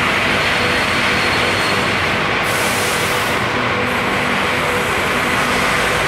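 Steady loud din of tile-factory machinery and conveyor lines, heard from a moving open cart, with a few faint steady hums in it. A short hiss about two and a half seconds in.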